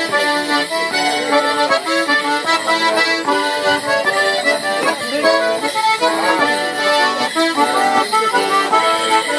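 Accordion playing a lively traditional morris dance tune, with the jingle of bell pads on the dancers' legs.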